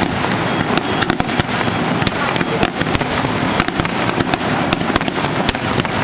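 Fireworks display in a dense, nonstop barrage: many sharp bangs and crackles a second over a continuous rumble of overlapping shell bursts.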